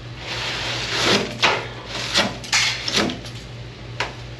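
Rusted sheet-metal section of a car's rear quarter panel being pulled and worked loose: a series of short scrapes and knocks of metal and debris, over a steady low hum.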